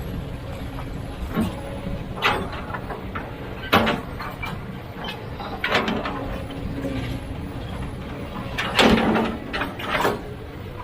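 Heavy machinery working: an engine running steadily under a string of sharp knocks and clangs, about six of them, the loudest about nine seconds in.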